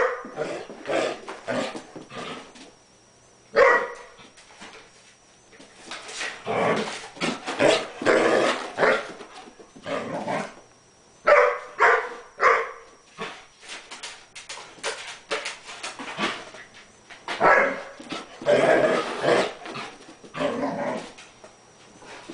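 Collie barking and yipping in excited play, in irregular bursts with a few short pauses, with some whining between.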